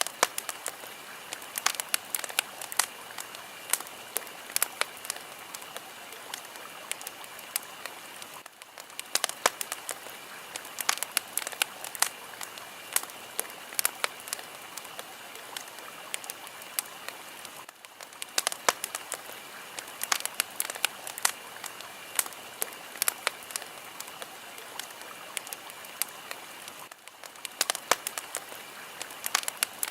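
Fire crackling, with frequent sharp pops and snaps over a steady hiss; the hiss dips briefly about every nine seconds.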